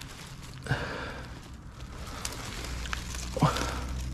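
Landing net being worked through the water around a hooked carp, with soft swishing and handling noise: two louder whooshes, about a second in and near the end, and a low rumble building in the second half.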